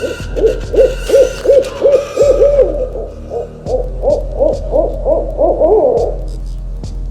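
Owl calling a rapid series of short hoots, about three a second, each note rising and falling in pitch, with a brief pause midway; the series stops about six seconds in.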